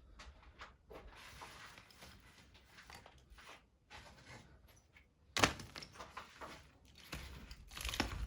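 Faint scraping and handling noises in a small room, with one sharper knock about five and a half seconds in.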